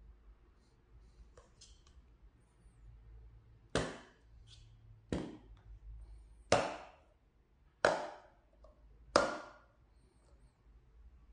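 Hard plastic sport-stacking cups set down one at a time onto a stacking mat and onto each other: five sharp clacks, evenly spaced about a second and a half apart, each dying away quickly, with a few light taps between.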